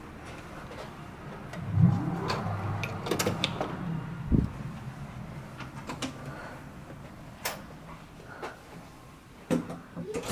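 Handling noises: scattered clicks and knocks, with a louder knock about two seconds in and a dull thump a little after four seconds, over a faint low hum.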